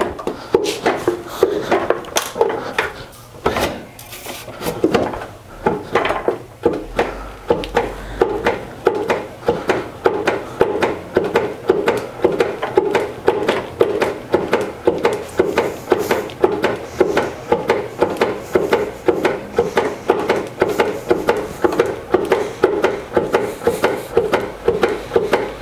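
Wooden foot-treadle lathe being pedalled: the pedal, linkage arm and offset block knock and rub in a rhythm that picks up speed over the first several seconds, then holds a fast, even beat of about three to four knocks a second. The treadle wheel's axle turns in bare wooden holes, with no bearings fitted yet.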